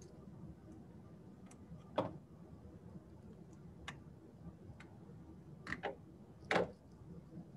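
A few scattered, faint clicks over low room noise: single clicks about two and four seconds in, a quick double click just before six seconds, and a louder, slightly longer click about six and a half seconds in.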